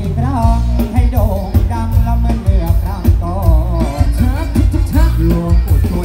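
Loud Thai rot hae sound-truck band music played through a large loudspeaker stack: a singer's wavering melody over heavy bass and drums.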